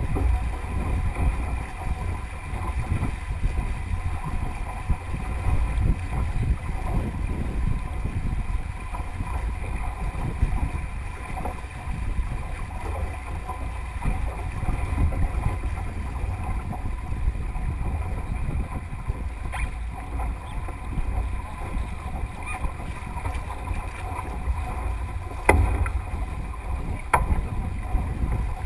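Water rushing and splashing along the hull of a Melges 24 sailboat sailing fast, with wind buffeting the microphone as a steady low rumble. A few sharp knocks come in the second half.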